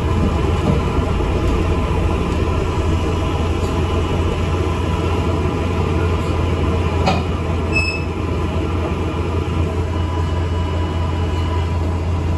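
Steady low rumble of an ADL Enviro 400 MMC double-decker bus under way, heard from inside the cabin, with a faint steady whine and a single click about seven seconds in.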